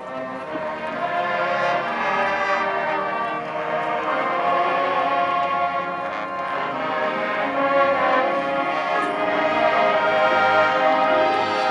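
Orchestral music with brass, sustained chords that swell louder over the first few seconds.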